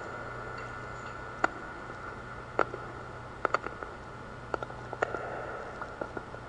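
Scattered small clicks and knocks at irregular intervals, with a few in quick pairs, over a steady low hum in a quiet church.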